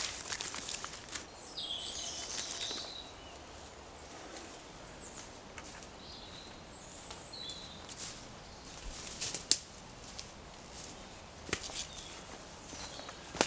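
Moss tearing and rustling as it is pulled off a dead log at the start, then a few short bird chirps among the trees. Footsteps crunch on dry leaf litter in the second half.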